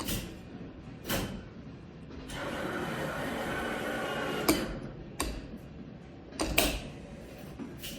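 Claw machine mechanism: a motor whirs steadily for about two seconds in the middle, with several sharp clicks and clunks spread through.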